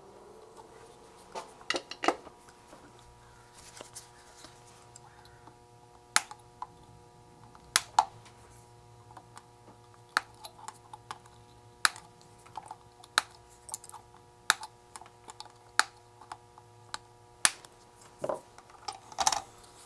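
Irregular small sharp clicks and taps of tools and electronic components being handled at a workbench while an electronics kit is assembled, some coming in quick pairs, over a faint steady hum.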